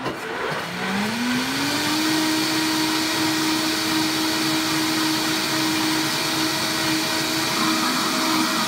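Countertop blender motor spinning up, rising in pitch over about two seconds, then running steady at full speed. It is blending a thick corn puree thinned with stock and cream into a soup.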